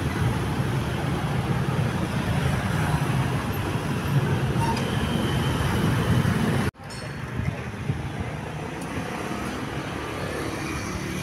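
Road traffic noise with a steady low engine rumble and no horn tune sounding. It cuts off suddenly about two-thirds of the way through, then returns a little quieter.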